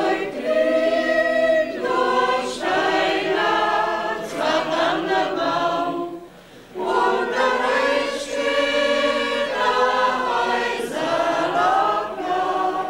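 Mixed choir singing in parts: two long sung phrases with a short breath pause about six seconds in.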